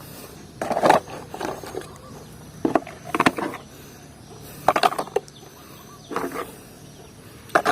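Plastic toy vehicles clattering and knocking together as they are picked up and gathered into a pile, in four short bursts of clicks and knocks.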